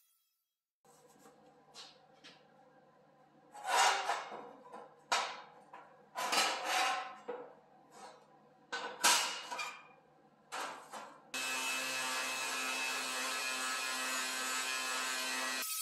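Sheet-steel shelf pieces scraped and slid across a metal workbench in a string of short rasping strokes. About eleven seconds in, a Ridgid cordless angle grinder starts abruptly and runs steadily against the edge of a steel panel.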